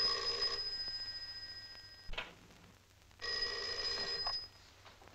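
A rotary desk telephone's bell ringing: one ring dies away, the lamp switch clicks about two seconds in, then the bell rings again for about a second.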